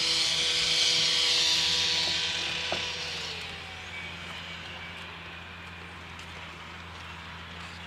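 A motor vehicle passes and fades away during the first few seconds, over a steady low engine hum that keeps on.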